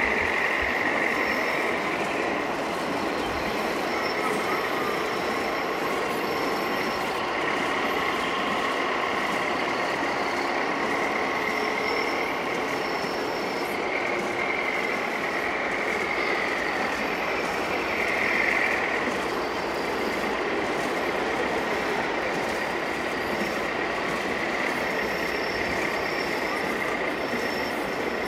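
Radio-controlled model trucks and construction machines running: a steady high whine of small electric drives that wavers in pitch and swells briefly about two thirds of the way in, over a continuous rushing noise.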